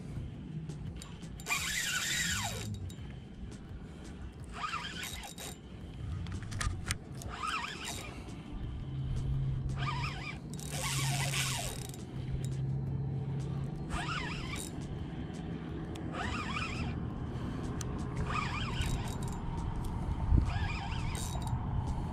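Spinning reel's drag buzzing in about eight short bursts, two to three seconds apart, as a hooked red drum pulls line against it, with the reel cranked between runs.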